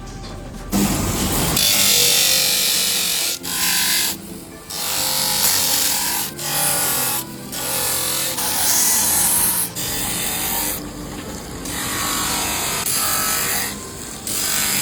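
A power tool working a piece of animal horn with a hissing, grinding noise, in repeated passes of a second or two with short breaks between them.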